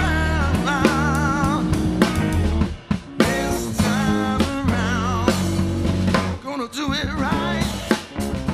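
A small rock band playing an upbeat, funky song live: electric guitar, electric bass and drum kit with rimshots, under a sung lead vocal holding long notes with vibrato. The band drops out briefly just before the three-second mark, then comes back in.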